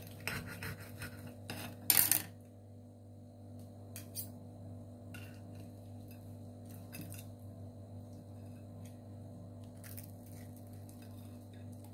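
Metal fork and knife clinking and scraping against a plate while cutting grilled chicken: a cluster of clicks in the first two seconds, the loudest just before two seconds in, then a few scattered clicks. A steady low hum runs underneath.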